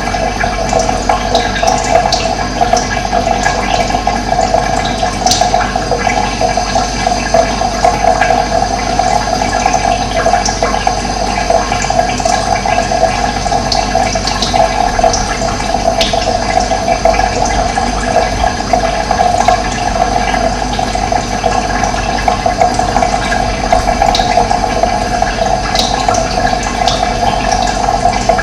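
Running water rushing steadily, with a few brief bird chirps above it.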